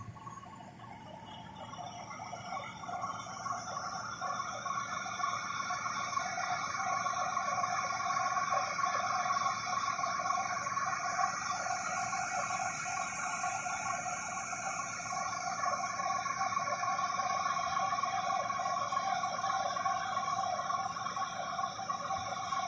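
John Deere CP690 cotton picker running, a steady high whine made of several held pitches, growing louder over the first several seconds and then holding steady.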